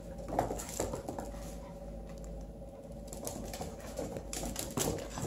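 Paws and claws of a kitten and a pocket beagle skittering on a hardwood floor as they play-fight, a scatter of light taps and scrabbles.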